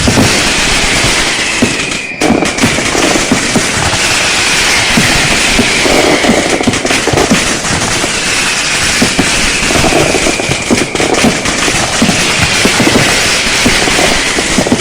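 Fireworks and strings of firecrackers going off in a dense, continuous crackle of pops, loud throughout, with a faint falling whistle-like tone recurring every few seconds.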